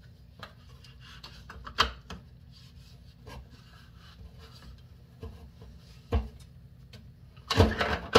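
Kitchen faucet parts being handled and fitted back together by hand during reassembly after a cartridge replacement: scattered light clicks, knocks and rubbing. There is a louder knock about two seconds in, another about six seconds in, and a short run of louder clatter near the end.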